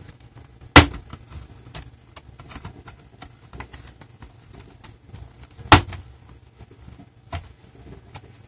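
Plastic retaining clips of a Dynabook Satellite Pro C50-H-11B laptop's bottom case snapping loose as the case is prised off by hand. There are two sharp snaps about five seconds apart and a softer one near the end, with faint plastic clicking between them.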